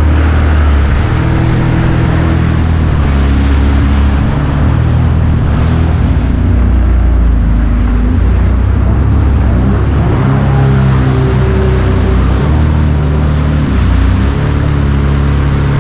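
Background music with a bass line stepping from note to note, over the rush of a jet ski running and its spray on the water.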